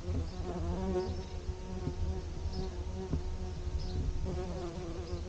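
Bumblebee buzzing in flight, a steady humming drone that wavers slightly in pitch.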